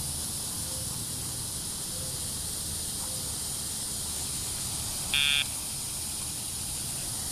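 A single short electronic beep from a Dogtra e-collar about five seconds in, the loudest sound here, over a steady high hiss.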